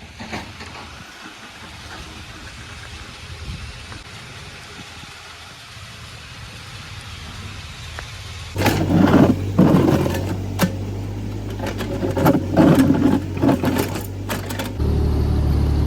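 Mini excavator (JCB JS30 Plus) at work. A low steady diesel engine note comes in suddenly about halfway through, with loud irregular clanking and scraping over it. The engine grows louder again near the end.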